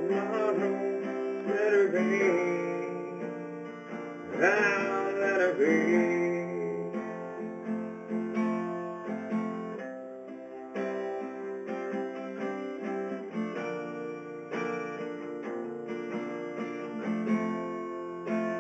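Acoustic guitar strummed in a slow pop-rock song, with a man's singing voice holding long, wavering notes over it in the first several seconds; the guitar then carries on alone.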